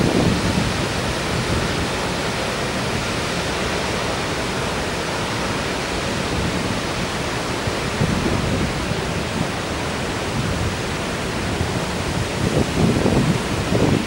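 Shōmyō Falls, a tall plunging waterfall, giving a steady, unbroken rush of falling water. Low gusts of wind on the microphone swell in about halfway through and again near the end.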